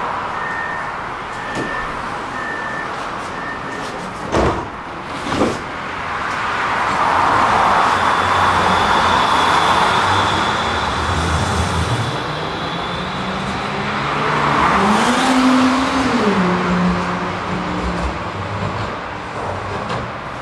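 Electric tram leaving a stop: a few seconds of short, evenly spaced door-warning beeps, two sharp knocks a second apart as the doors shut, then the tram pulls away, rolling on the rails with a high steady whine and electric motor tones that rise and then fall. Road traffic runs alongside.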